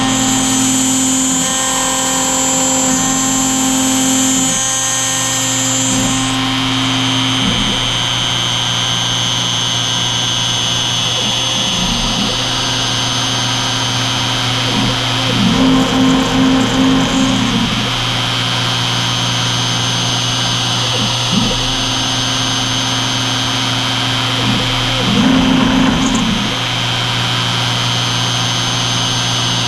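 CNC router milling delrin (acetal) plastic with a small end mill: the spindle runs with a steady high whine, while lower motor tones start, stop and change pitch as the machine moves. There are two louder stretches of cutting, one about halfway through and one near the end.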